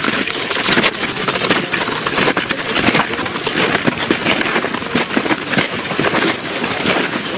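Snowshoe footsteps of several hikers crunching on packed snow, an irregular, dense run of quick crunches.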